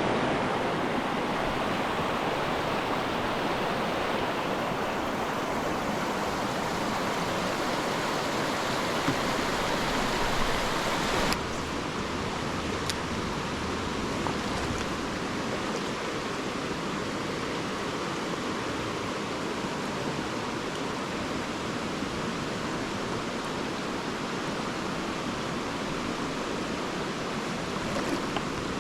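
Mountain stream water rushing steadily. About eleven seconds in it shifts abruptly to a slightly quieter, thinner rush.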